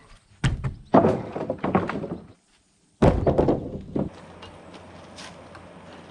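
Heavy thunks and clattering knocks of old wooden deck boards being wrenched off and dropped during demolition, in two loud bursts about three seconds apart, followed by a steady low hum.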